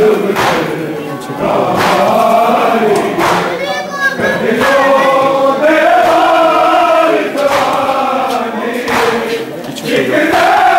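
Group of men chanting a Punjabi noha (mourning lament) together, the voices rising and falling, punctuated every so often by sharp slaps.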